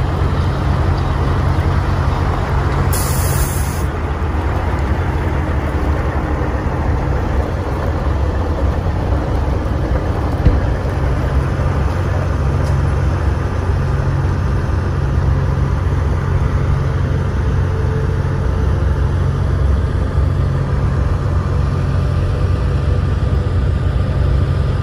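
Diesel engine of a heavy tri-axle rotator wrecker running steadily as the truck pulls away, with a short burst of air hiss about three seconds in.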